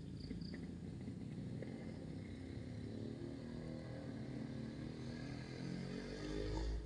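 A motor vehicle engine running faintly, with a low rumble swelling just before the end.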